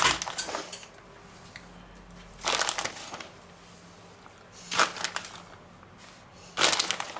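Plastic bag of grated cheese crinkling in four short bursts, about two seconds apart, as a hand reaches in for pinches of cheese.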